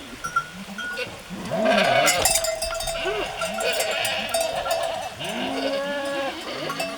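A flock of sheep bleating, several calls overlapping, with bells clinking among them. The bleating grows thicker about a second and a half in.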